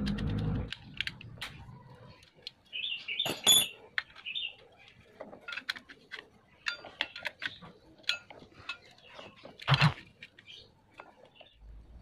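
Small clicks and taps of hands and a screwdriver working on a washing machine motor's metal housing and wires, with two louder knocks, one about three and a half seconds in and one near ten seconds in. A low rumble stops within the first second.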